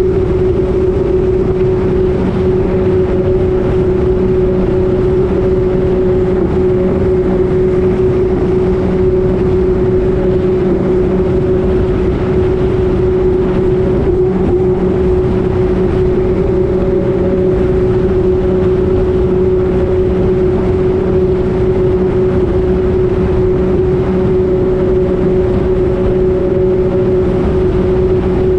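Jet ski engine running at a steady high speed, holding one constant pitch with no revving, over a loud, steady rushing noise.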